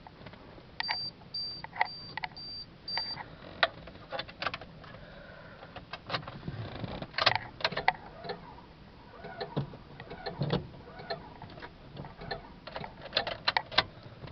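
Inside a Honda Civic that won't start: five short high electronic beeps from the car's warning chime, then irregular sharp clicks and knocks.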